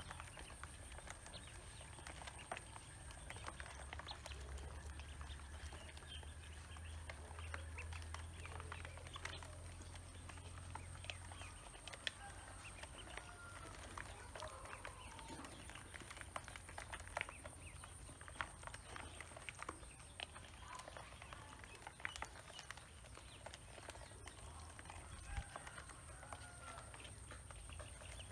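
Ducklings pecking feed from a plastic basin: a rapid, irregular pattering of small taps, with a few soft peeps now and then.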